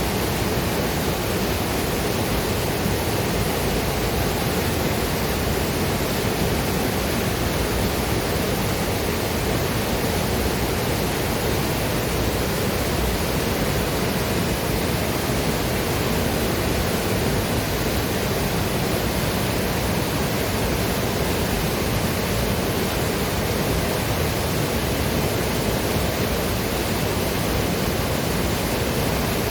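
Waterfall and river water rushing, a steady dense roar without let-up.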